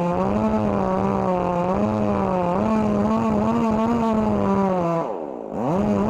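Two-stroke chainsaw cutting into a large tree trunk, the engine running steadily under load with its pitch wavering. About five seconds in the revs drop away sharply, then climb straight back up.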